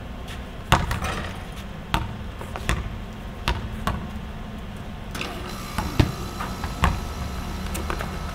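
Basketballs bouncing on an outdoor concrete court: sharp thumps at irregular intervals, roughly one a second, over a steady low rumble.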